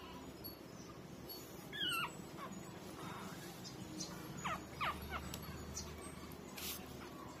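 Young puppies whimpering: a few short, high squeals that fall in pitch, one about two seconds in and two close together near the middle.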